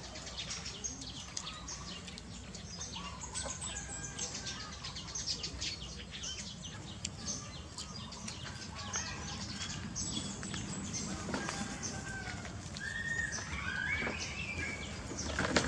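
Light high chirping and clicking, with a few short squeaky rising-and-falling calls near the end, over a low steady hum.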